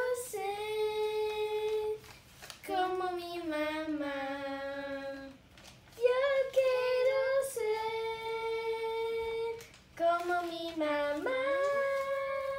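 Young girls singing unaccompanied in long held notes, four sung phrases with short breaks between them.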